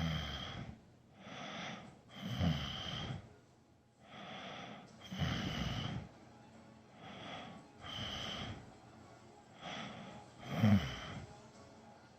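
A sleeping person snoring in a steady rhythm: four breaths, about one every three seconds. Each is a softer breath followed by a louder fluttering snore.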